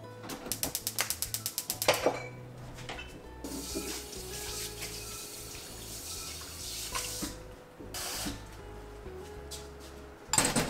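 Water running from a kitchen tap for about four seconds, after a rapid run of clicks, with a few knocks following and a louder knock near the end. Soft background music underneath.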